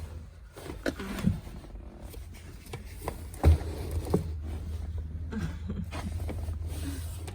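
Old floor carpet being worked loose from a car's floor: scattered clicks, knocks and rustles, with a sharper knock about three and a half seconds in, over a steady low hum.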